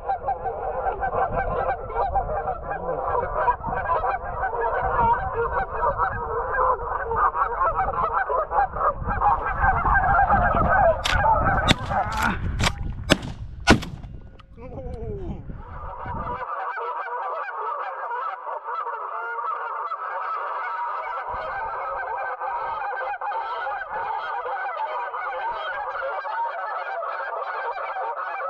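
Many geese honking continuously, with wind rumbling on the microphone in the first half. About halfway through, a quick volley of five or six shotgun shots rings out, and then the honking carries on without the rumble.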